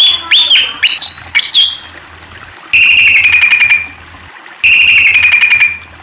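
Malaysian pied fantail singing: a few quick, squeaky swooping notes, then two chattering trills, each about a second long and a second apart.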